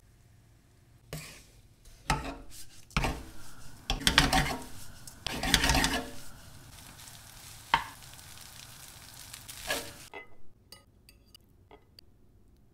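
A wooden spatula stirring and scraping rice around a nonstick frying pan in irregular strokes over a steady sizzle, loudest in the middle; it cuts off suddenly near the end, leaving a few faint ticks.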